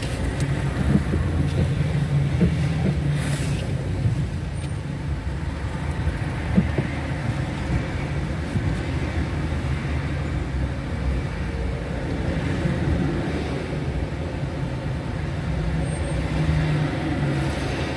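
Steady low rumble of a car's engine and road noise in slow, near-stopped city traffic, with one short knock about six and a half seconds in.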